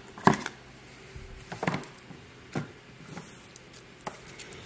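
Hard plastic card holders being handled and set against a display shelf: a few short plastic clicks and knocks, the sharpest about a third of a second in, with fainter ones spaced through the rest.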